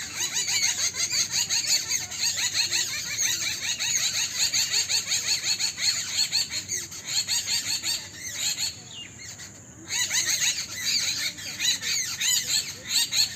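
A dense chorus of many small birds chirping and chattering all at once, with a brief lull about eight to ten seconds in.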